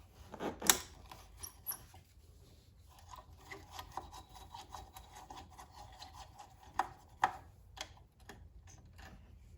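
A screw being backed out of a generator's muffler to free the spark arrestor: quiet metal-on-metal scraping and rubbing from the tool on the screw, with a few sharp clicks, two of them close together about seven seconds in.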